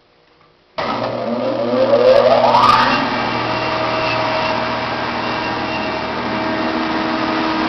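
Felder 16-inch combination jointer-planer switched on about a second in: the motor and four-knife planer cutterhead spin up with a rising whine for about two seconds, then run steadily at full speed.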